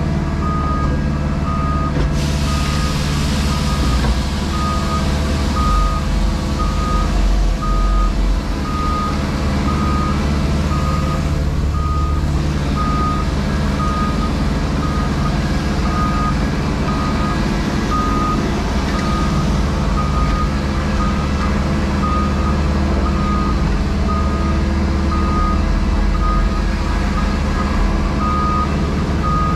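Diesel engine of a JCB Pothole Pro running steadily under a reversing alarm beeping one steady tone about one and a half times a second. A hiss comes in about two seconds in and fades out about ten seconds later.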